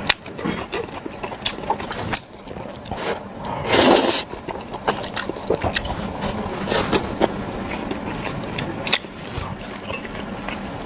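Close-up eating sounds: chewing, with repeated small clicks and scrapes, and one louder noisy burst about four seconds in.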